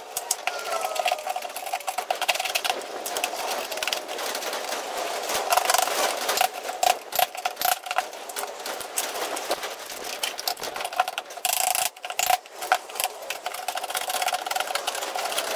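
Steel scraper and dustpan scraping and clinking metal offcuts and wet iron filings out of the slat bays of a drained CNC plasma water table: a continuous, rapid scratching and rattling of metal on metal.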